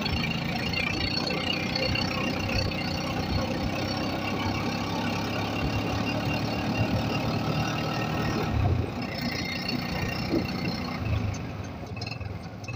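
Motorcycle engine running steadily while riding along, a continuous hum under road noise, growing quieter near the end.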